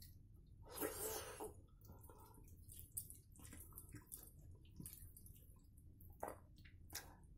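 Fingers squeezing and mixing soft, wet rice with mashed vegetables on a steel plate: faint sticky squishes and small clicks, with a longer rustle about a second in.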